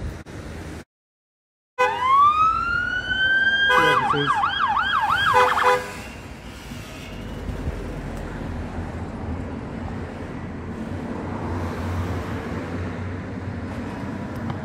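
A police siren briefly winds up in a rising wail, switches to a fast yelp for about two seconds, then cuts off. After it, a car's engine and tyres run low and steady as a vehicle approaches.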